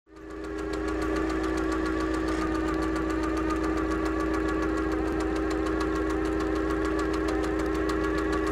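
Machine-like sound effect for an animated clockwork logo: a steady mechanical hum with rapid, even ticking. It fades in over the first second.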